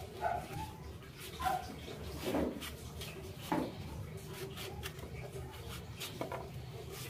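Small knife peeling ripe Indian mangoes over a bowl: soft scraping and light clicks of the blade against fruit and bowl, with two short high whimpers in the first couple of seconds.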